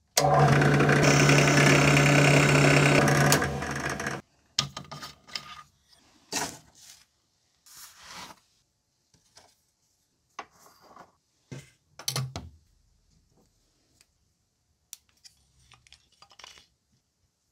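Bench drill press motor switched on, running with a steady hum for about three seconds, then dropping and stopping about a second later. Scattered short rubs and clicks of hand work follow.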